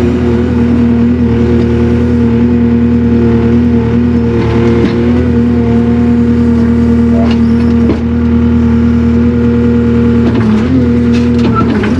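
Takeuchi TL240 skid steer's diesel engine running at a steady speed, with a few clanks and knocks along the way.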